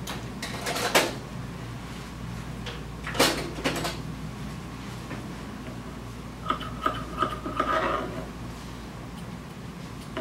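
Grooming scissors snipping a Yorkie puppy's coat: a run of quick metallic clicks with a slight ring about six and a half seconds in. A few sharper knocks of handling come before it, about half a second and three seconds in, over a faint steady low hum.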